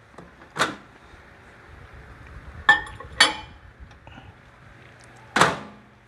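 Microwave oven door opened with a clack, a ceramic mug of water set inside with two clinks on the turntable, and the door pushed shut with a clunk near the end.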